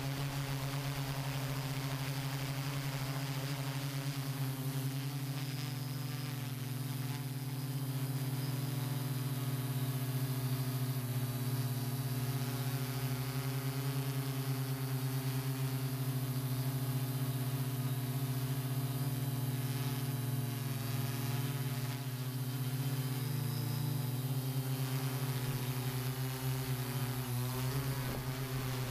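Hexacopter drone's motors and propellers humming steadily as it flies, the pitch shifting slightly now and then as it manoeuvres.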